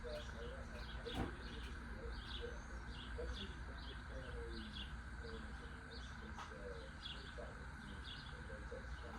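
Birds chirping over and over, some high and quick, some lower and shorter, over a steady low hum, with a single sharp knock about a second in.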